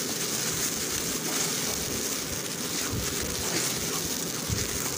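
Masala paste sizzling steadily in hot mustard oil in a kadhai while it is stirred, with a couple of soft knocks.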